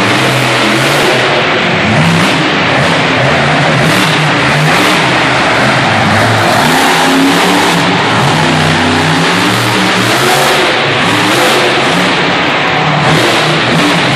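Monster truck engine revving hard and loud, its pitch rising and falling again and again.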